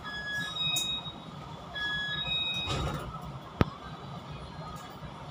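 Electronic warning tones: a short pattern of high steady beeps sounding twice, about 1.7 seconds apart, over a low steady rumble. A single sharp click comes about three and a half seconds in.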